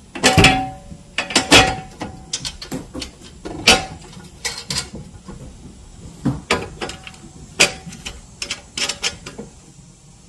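Irregular metal clinks and knocks of hardware being handled as the rear board is fitted onto its mounting bolts and the nuts go on, a few clinks ringing briefly.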